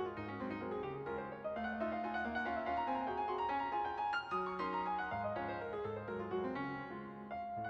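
Background piano music: a quick run of many notes playing continuously.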